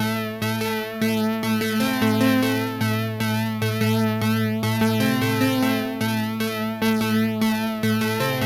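Synthesizer intro of a song: sustained keyboard chords over a bass line that changes note every second or two, with no vocals.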